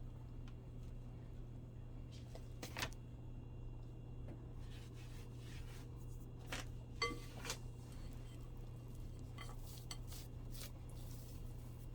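Kitchen utensils and dishes knocking and clinking now and then, a handful of separate clicks with one ringing clink about seven seconds in, over a steady low hum.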